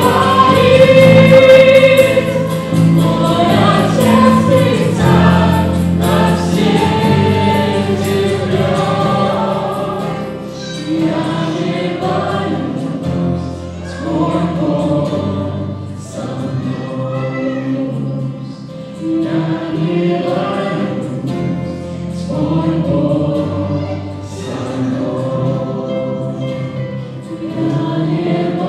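A worship band performs a song: a group of men and women sing together into microphones, backed by keyboard, acoustic guitar and bass guitar holding low notes underneath.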